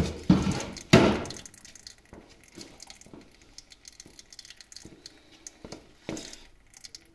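Old gear oil draining from a lathe headstock's drain hole in a thin stream into a bucket, pattering and dripping. Two louder splashing clatters in the first second or so, and another about six seconds in.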